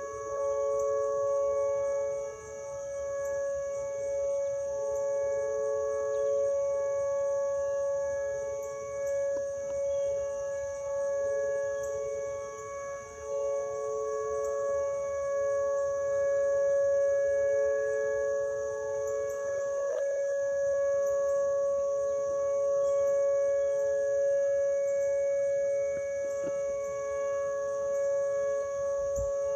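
Outdoor tornado warning sirens sounding a steady wail from a distance, two pitches held together, the lower one swelling and fading.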